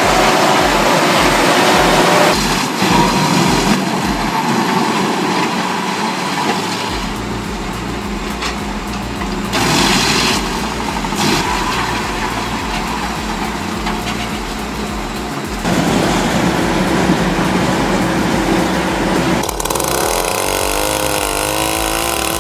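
Heavy wood chippers and shredders running under load, their engines and cutting gear working through wood, in several short clips that cut sharply into one another. A regular low pulse runs through the first few seconds, and an engine's pitch rises and falls near the end.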